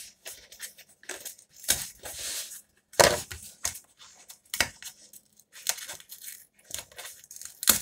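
A cardboard mailer being cut with a serrated knife and then picked at and torn open by hand: irregular scrapes, rips and small knocks, the sharpest knock about three seconds in.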